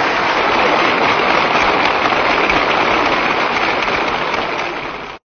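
Audience applauding after the punchline of a crosstalk (xiangsheng) routine. The applause fades near the end, then cuts off suddenly.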